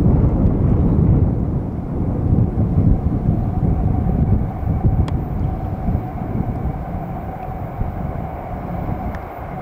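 Steady low rumble of an approaching CSX freight train's diesel locomotives, with a faint steady tone joining about three seconds in.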